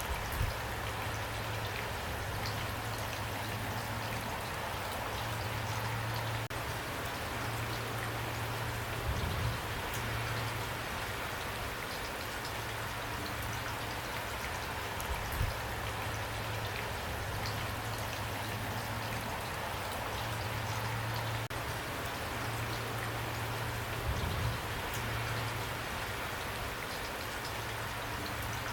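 Steady rain falling, with a handful of louder drop hits now and then and a low rumble that comes and goes underneath.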